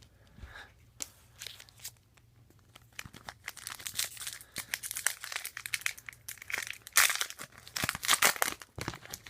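Foil wrapper of a trading-card pack crinkling and tearing as it is opened by hand: scattered crackles at first, then a dense run, loudest in the last few seconds.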